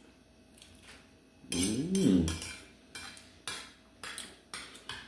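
Metal spoon clinking and scraping against a bowl of chicken soup, several short light clinks. About a second and a half in, a brief hummed voice sound is the loudest thing.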